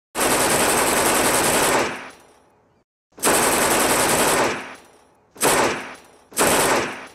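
Automatic machine-gun fire in four bursts: a long one of about two seconds, another of about a second and a half, then two short ones, each trailing off in an echo.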